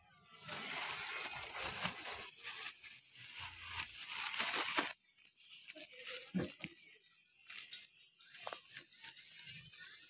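Rustling and crinkling of a bag with rice grains rattling as rice is taken out for the pigeons, loud for about five seconds and then cutting off suddenly, followed by a few light clicks.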